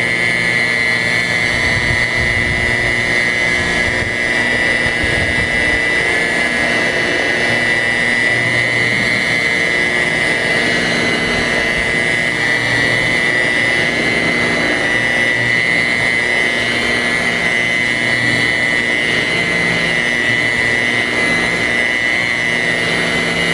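Handheld rotary polisher running steadily with a high motor whine, its pad working polish into a car's painted bonnet under firm two-handed pressure.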